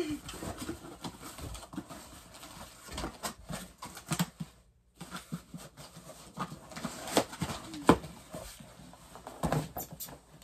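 Household items and packaging being handled: irregular knocks, clicks and rustling, with a short silent gap about halfway.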